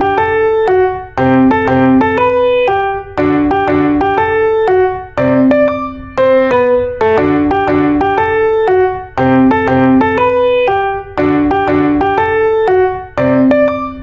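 Background music: a piano melody of quick successive notes, its phrase repeating about every two seconds.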